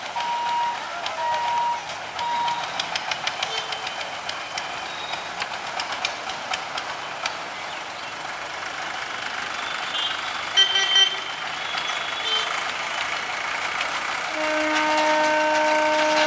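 Electronic warning beeps pulsing at the start, followed by scattered clicks and a brief higher-pitched horn toot about ten seconds in. About fourteen seconds in, a long, loud, steady blast of a WAP4 electric locomotive's horn begins.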